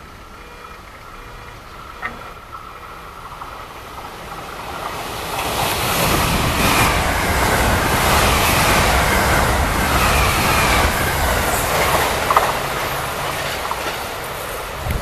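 JR West 683 series 2000-subseries eight-car electric limited express passing at high speed. Its rush builds over a few seconds and runs loud for about five seconds, with wheels clicking over the rail joints, then fades as the train goes away.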